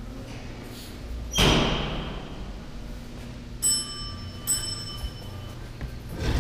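A single heavy thump about a second and a half in, then an elevator's arrival chime: two ringing dings about a second apart, each fading away. A fainter knock comes near the end.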